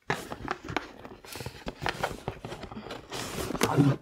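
Cardboard rustling and scraping with many sharp clicks and knocks as a boxed subscription box is worked out of its cardboard shipping carton, loudest just before the end.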